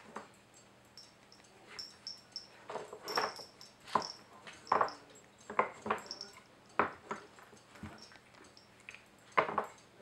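Wooden blocks and sliders of a Nina Ottosson Dog Fighter puzzle board knocking and scraping as a puppy paws and noses at them: irregular short knocks and brief scuffs, a dozen or so.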